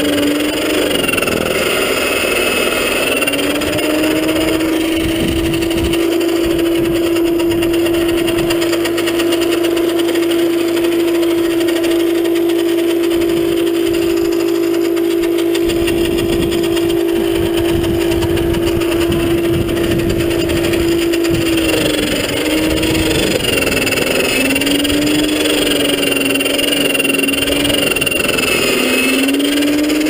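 A roughly 40-year-old corded electric snowblower running as it clears snow: a steady motor whine that holds one pitch for most of the time, with its pitch dipping and recovering near the start and several times near the end, over a steady rushing hiss.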